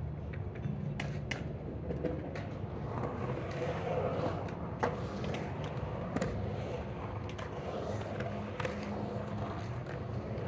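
Skateboard wheels rolling on a concrete bowl, a continuous low rumble with occasional sharp clicks.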